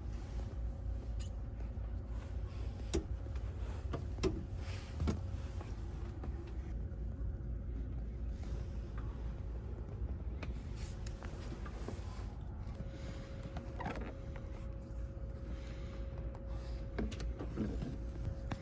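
Steady low hum inside a HARUKA limited express train car, with a faint steady tone and a few light knocks about three to five seconds in.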